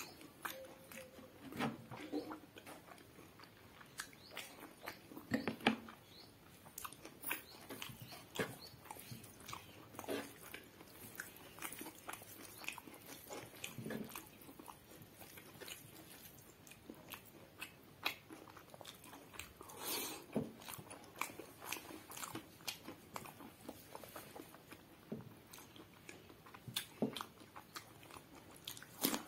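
Close-up eating sounds: a man chewing pulao and curry eaten by hand, with many short wet mouth clicks and smacks, and crunching bites of raw cucumber.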